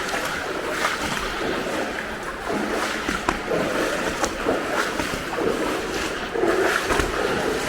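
Boots wading through shin-deep standing water, a continuous sloshing and splashing with each step.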